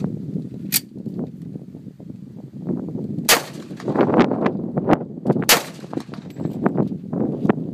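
FNP-45 Tactical .45 ACP pistol firing two shots about two seconds apart, after a jam has been cleared. A sharper, smaller snap comes about a second in, while the pistol is being worked.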